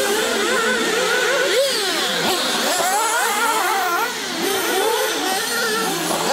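Several 1/8-scale nitro RC cars' small two-stroke glow engines running at high pitch, revving up and down continually as they race, their overlapping whines rising and falling.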